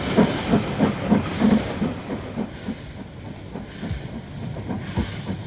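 Steam locomotive working a train, its exhaust chuffing about three beats a second with a hiss over it, growing fainter about halfway through.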